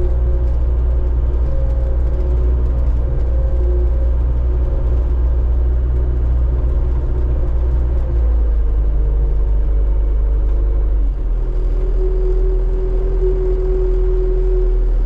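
Engine of a hydraulically driven farm machine running steadily, with a whining tone over a low rumble. Its pitch and note change about halfway through and again a few seconds later, as the machine works or shifts speed.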